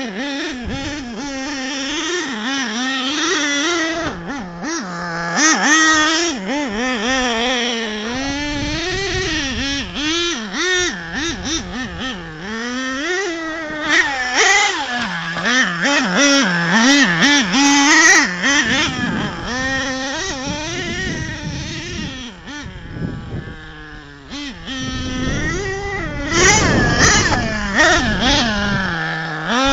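Small nitro engine of an RC monster truck revving up and down constantly as it is driven hard over gravel, its pitch rising and falling every second or so. There are scattered knocks throughout, and the engine drops back briefly a little before the end, then revs up again.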